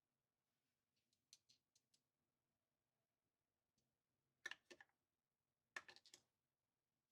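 Faint clinks of metal cutlery being handled and set down in a drawer: a few light clicks, then two short clusters of sharper clinks about four and a half and six seconds in.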